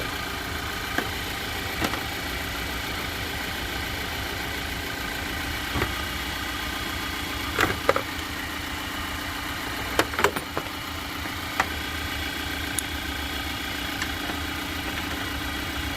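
Nissan Patrol engine idling steadily with the air-conditioning compressor engaged, with a few short sharp clicks and knocks scattered through.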